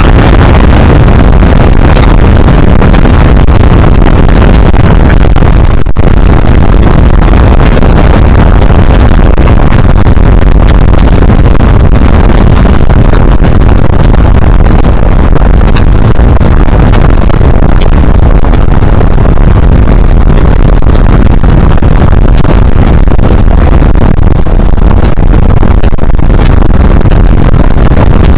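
Steady wind rush battering an action camera's microphone on a Honda CBR125R motorcycle at riding speed, mixed with engine and road noise. It is loud enough to clip, with scattered crackles.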